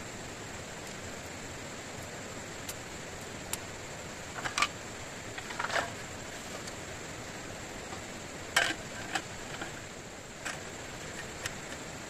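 Aluminium folding camp table being set up: several sharp clicks and clacks as the X-frame legs are opened and the slatted aluminium top is fitted onto the frame, the loudest about four and a half and eight and a half seconds in. A steady hiss runs underneath.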